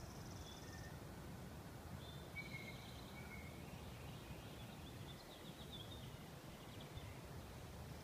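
Faint songbird calls in woodland: two short high notes a little over two seconds in, then a run of quick chirps, with a high rapidly pulsed buzz in the first second, over a low steady outdoor rumble.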